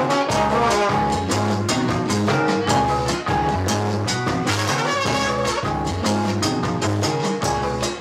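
Live Latin funk band playing, with a trumpet lead over bass, drum kit and a steady percussion beat.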